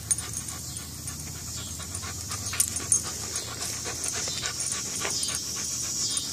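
A dog panting hard through its clenched teeth as it hangs on and tugs at a rope toy tied to a branch, with scattered short clicks and rustles.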